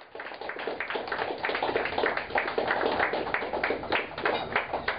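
A small audience clapping: many overlapping hand claps.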